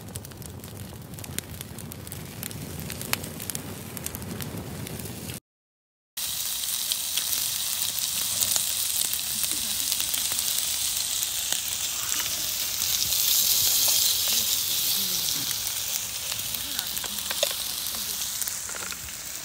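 A wood fire crackling in a small brazier, scattered sharp pops over a low rush. After a short break, fried rice sizzling in a hot griddle pan on a portable gas stove, a steady, louder hiss.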